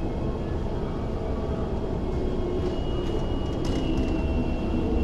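MTR West Rail Line electric multiple-unit train pulling into an underground platform behind platform screen doors. A steady rumble grows a little louder, a motor whine falls in pitch as the train slows, and a high steady tone joins about halfway through.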